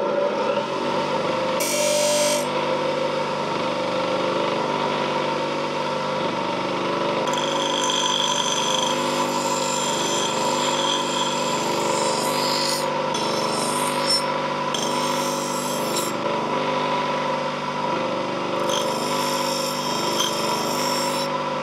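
A power tool runs steadily under load while easing the fit between the forged sickle's tang and its wooden handle.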